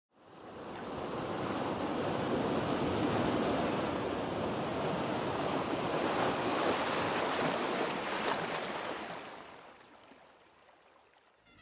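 Sea waves washing in, fading up over the first second or so and fading away from about eight seconds in.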